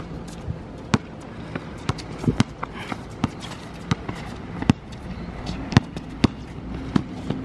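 Basketball being dribbled on a hard outdoor court: a string of sharp bounces at uneven spacing, roughly one or two a second.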